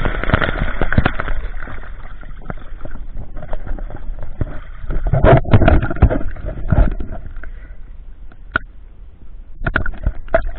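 Water sloshing and gurgling, with irregular knocks and clicks. It is loudest in two spells, at the start and again about five to seven seconds in.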